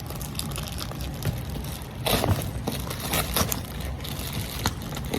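Rustling, crinkling and tearing of a delivery package being opened by hand, in irregular bursts that are loudest about two seconds in.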